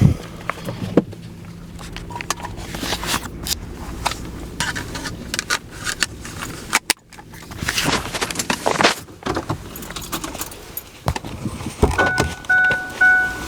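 Irregular jangling, rattling and clicking, like keys and close handling. About 12 seconds in, an electronic beeping tone starts and keeps repeating.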